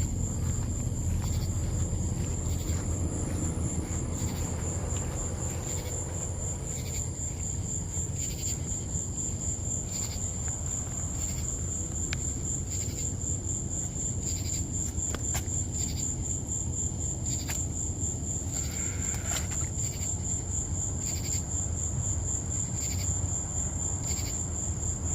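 Insects, crickets by their sound, trilling in one steady, unbroken high tone, with fainter chirps about once a second. A low rumble runs underneath.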